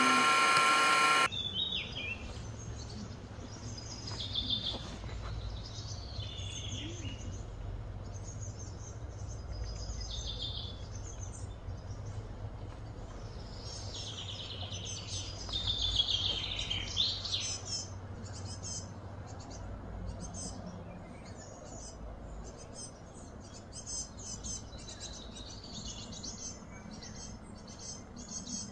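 Birds chirping and calling over and over, with short rising and falling calls, over a steady low background rumble. A loud steady hum of several pitches at the very start cuts off suddenly about a second in.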